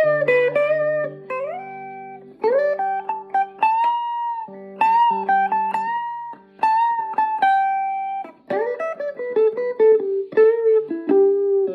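A guitar played solo: picked single notes and short runs, some sliding up or down in pitch, over ringing low notes, with a couple of brief pauses.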